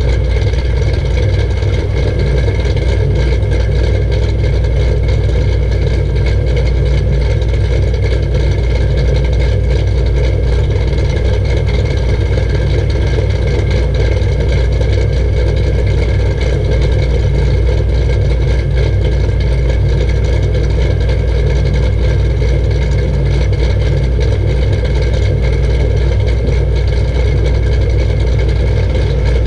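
Cammed Camaro SS V8 idling steadily through an MBRP exhaust, heard close to the tailpipes.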